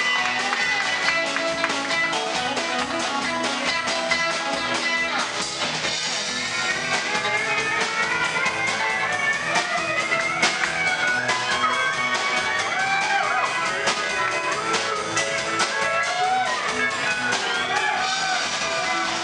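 Live country band playing an instrumental break: a Telecaster electric guitar takes the lead with gliding, bending notes over a steady drum kit beat.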